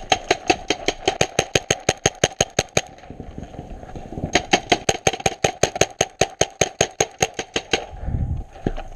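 Paintball marker firing rapid strings of shots, about seven or eight a second: one burst of about three seconds, a pause of over a second, then a second burst of about three and a half seconds. A low thump comes near the end.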